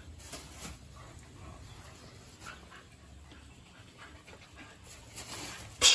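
Two-month-old mixed-breed puppies playing and wrestling, with faint panting and scuffling. There is one short, loud hiss-like burst near the end.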